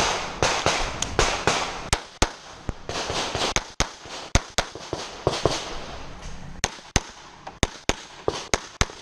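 Semi-automatic pistol fired in quick strings of shots, with short pauses between strings. Each crack trails off in an echo.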